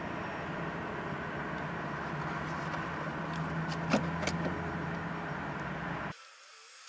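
Steady low vehicle hum and street traffic heard from inside a car, with a few sharp clicks about four seconds in. The sound drops away abruptly near the end.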